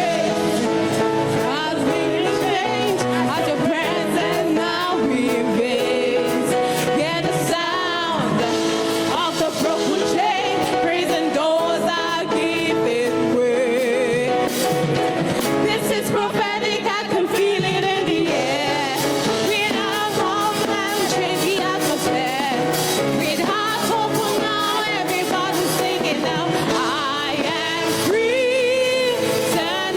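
Live gospel singing over band accompaniment, with wavering held notes in the voice.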